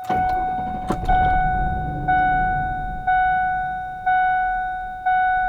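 A vehicle's cabin warning chime dings about once a second, each ding fading. Under it, the truck's engine starts and idles with a low rumble. The engine has a vacuum leak that the owner suspects is at the throttle body gasket, and it is having trouble idling.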